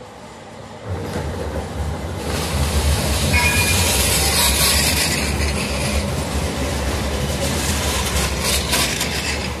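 Articulated electric street tram rolling past close by on its rails. Its rumble rises sharply about a second in and is loudest a few seconds later as it passes, with a brief high tone near the loudest point.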